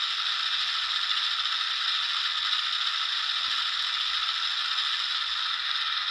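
Sound decoder in a Hornby OO gauge Class 08 model shunter playing its air-compressor effect. It is a steady, rattling mechanical hiss from the model's small speaker.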